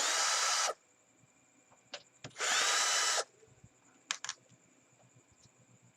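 Electric screwdriver spinning out the last two screws from a Panasonic stereo's casing: two short bursts of motor whine, the second about two and a half seconds in. A few light clicks follow, typical of screws and parts being handled.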